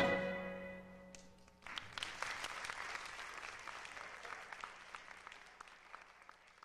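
The last sustained chord of the music dies away, and about a second and a half in an audience starts applauding, the clapping slowly thinning out.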